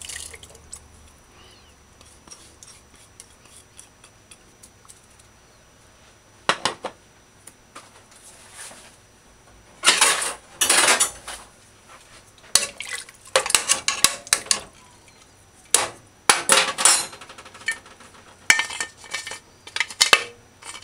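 Aluminium pressure cooker pot and lid clanking as they are handled: one knock about six seconds in, then repeated metal clatter through the second half as the lid is set on and closed.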